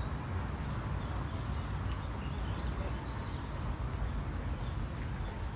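Faint, scattered bird chirps over a steady low rumble.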